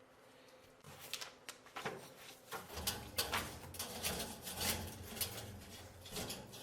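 Light clicks, knocks and scrapes of metal parts being handled as the chimney connector for a wood stove insert is fitted. A low steady hum joins about three seconds in.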